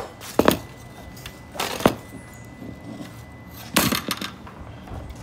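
Three short metallic clatters spread over a few seconds, from handling the removed aluminium A/C condenser on a concrete floor.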